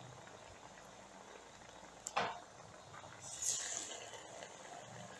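Masala vadai deep-frying in hot oil in a steel kadai: a steady sizzle and bubbling. About two seconds in comes a brief louder knock, and a little after three seconds a sharper burst of hiss.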